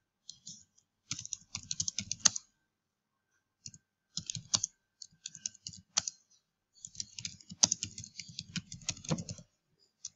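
Typing on a computer keyboard, in quick runs of keystrokes with short pauses between them; the longest run comes in the second half.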